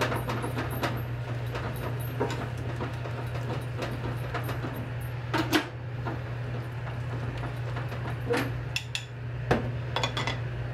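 Kitchen utensils and dishes being handled: scattered clinks and knocks, a few louder ones about halfway through and several more near the end, over a steady low hum.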